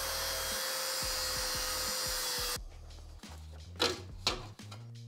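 Angle grinder with a cut-off disc cutting through the thin sheet-steel front fender of a Honda CB400: a steady hiss with a whine that sinks slightly in pitch, stopping suddenly about two and a half seconds in. Two sharp knocks follow about a second later as the grinder and cut fender are handled.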